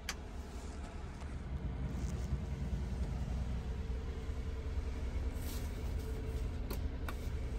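Daihatsu Hijet's small three-cylinder engine idling steadily, heard from inside the cab, with a few light clicks from the dashboard controls and the 4WD lever.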